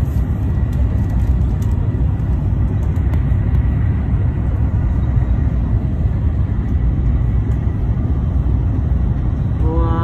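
Shinkansen bullet train running at speed, heard from inside the passenger car: a steady, loud, low rumble of running noise.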